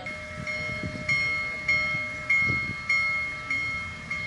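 A railroad bell ringing steadily, about one strike every 0.6 seconds, each strike ringing on and fading before the next. It grows louder about a second in, as the steam locomotive approaches.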